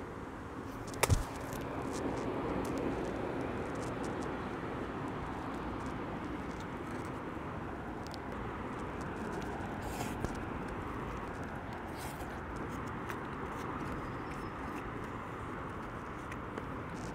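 Steady outdoor hum of distant street traffic, with one sharp click about a second in and a few faint ticks after it.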